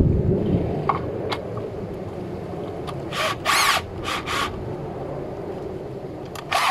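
Electric drill running steadily, with short scraping bursts as the bit cuts into the wood of the door about three seconds in and again near the end, enlarging the hole so the deadbolt fits.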